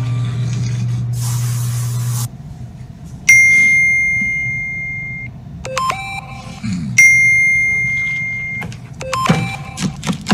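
A steady low hum that stops about two seconds in. Then comes a loud bell-like ding on one clear pitch that rings and fades over about two seconds. After a few clicks, a second identical ding comes about seven seconds in.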